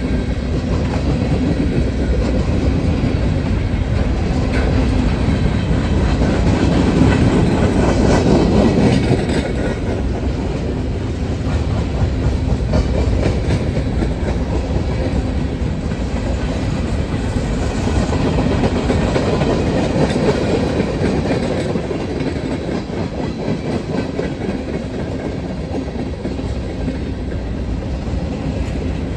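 Freight train cars, tank cars and covered hoppers, rolling past close by: steady noise of steel wheels running on the rails, a little louder about seven to nine seconds in and easing somewhat near the end.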